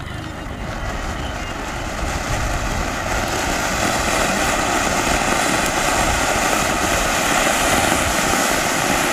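Colour koti ground fountain firework (flowerpot) spraying sparks with a steady rushing hiss. It grows louder over the first few seconds, then holds at full spray.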